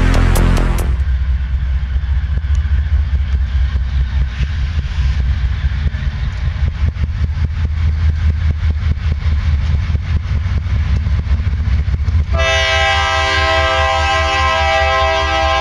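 Intro music cuts off about a second in, giving way to the unsteady low rumble of approaching diesel locomotives. About twelve seconds in, the lead locomotive's horn sounds a long, multi-note chord that holds to the end.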